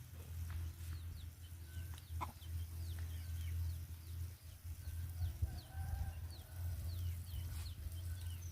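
Chickens clucking and peeping, a run of short, high, falling peeps repeating throughout, over a steady low hum.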